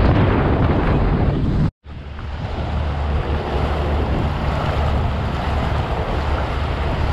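Bass boat running fast: a steady low outboard motor drone under heavy wind rush on the microphone and the hiss of water churned up in the wake. The sound drops out for an instant just under two seconds in, then carries on.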